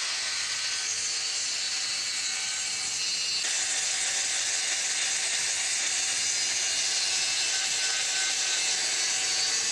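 DeWalt cordless circular saw running steadily as it cuts through a board along a Kreg AccuCut track guide, getting a little louder about three and a half seconds in.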